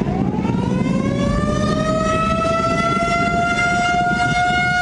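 Air-raid warning siren wailing: its pitch climbs over the first couple of seconds and then holds a steady tone, over a low background rumble.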